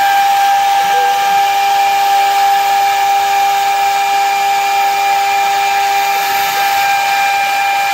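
CNC machine's spindle running with the cutter milling aluminium: a steady high-pitched whine over a constant hiss.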